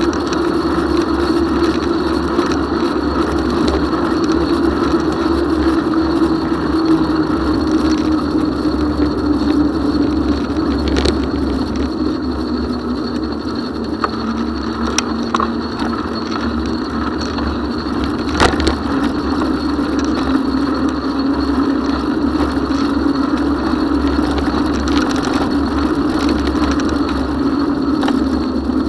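Bicycle ride heard from a handlebar-mounted camera: steady tyre rolling and wind noise with a hum that sinks and then rises again, and a few sharp clicks or knocks along the way.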